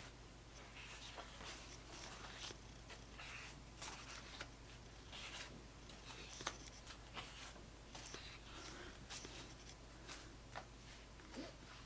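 Stiff double-weight fiber-based photographic prints being handled and slid over one another: faint paper scraping and rustling with small ticks, one sharper click about halfway through, over a low steady hum.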